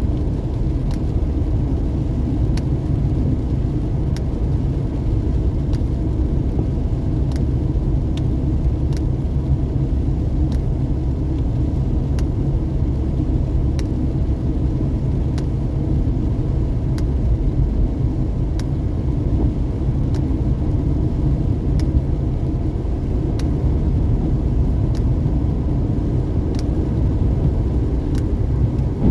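Steady low rumble of engine and tyre noise inside a vehicle's cab at highway speed, with a faint click about every second and a half.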